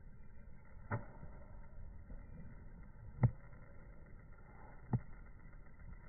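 Steady low background rumble with three short, sharp knocks: about a second in, just past the middle (the loudest), and near the end.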